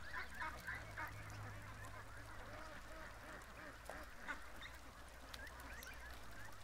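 A flock of domestic ducks and geese calling in the distance: many faint, overlapping honks and quacks keep up a continuous chatter over a low, steady hum.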